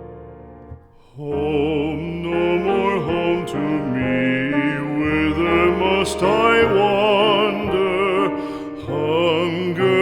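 Background music: a soft piano passage fades out, then about a second in a slow, sad song starts, its melody carried by a voice or instrument with strong vibrato over a full accompaniment.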